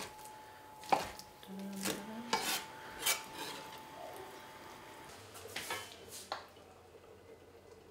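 Chef's knife chopping raw salmon on a wooden cutting board: a few separate knocks. About five and a half seconds in come two clinks of a metal pot lid.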